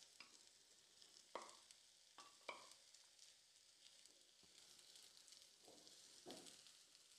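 Faint sizzle of chopped onion frying in a little oil as mashed potato is stirred in with a wooden slotted spatula, which scrapes and taps against the pan a few times.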